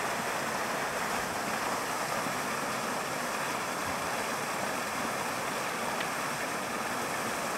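Steady rushing of a small waterfall in winter, water running under and between ice and snow, an even hiss-like rush with no change.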